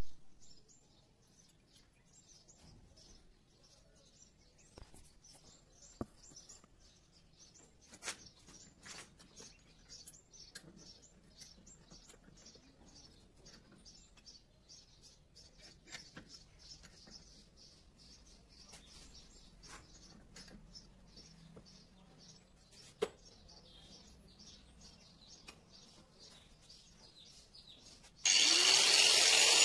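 Small birds chirping in the background, with scattered sharp clicks and knocks of a steel knife blank being handled in a bench vise. Near the end an angle grinder switches on and spins up with a loud rising whine.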